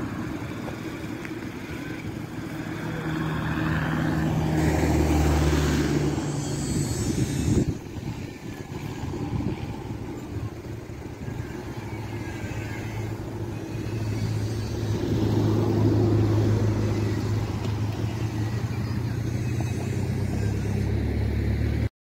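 Motor vehicles driving past on a road: engines humming with tyre noise, one passing close and loud about five to seven seconds in, and another engine hum building again after the middle.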